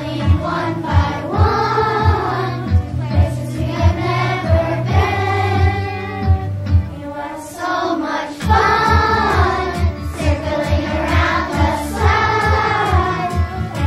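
Children's choir singing an upbeat song over an instrumental accompaniment with a steady drum beat; the beat drops out briefly just past the middle, then comes back.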